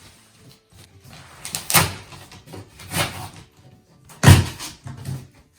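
Knocks, scrapes and rustling as a baby stroller and its packaging are handled during unboxing, with three stronger thumps, the loudest about four seconds in.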